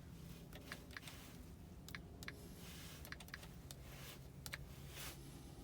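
Faint, irregular clicks of keys being pressed on a diagnostic tool while a car key is being programmed to the immobilizer.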